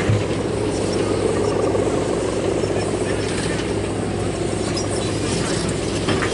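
The rattan bow hummer (guangan) of a Balinese bebean kite droning steadily in the wind, a continuous low buzzing hum with no breaks.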